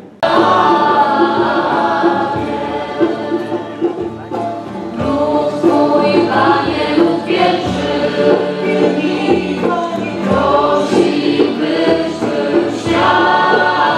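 Many voices singing a church hymn together in chorus. The singing starts abruptly just after the beginning and carries on loudly and continuously.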